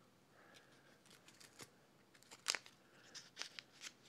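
Faint rustling and tearing of a small paper drink-mix packet being opened, with a few light clicks, the sharpest about two and a half seconds in.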